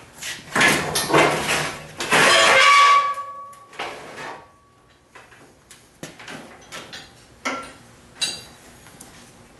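A large metal sheet scraped and set down onto a metal welding cart's slatted top: a loud scraping clatter with a short metallic ring that fades over about two seconds. A few lighter knocks follow as the sheet is settled.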